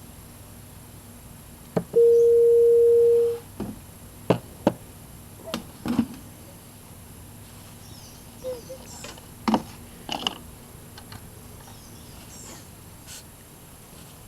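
A single steady beep about two seconds in, lasting about a second and a half, followed by a scatter of light clicks and knocks.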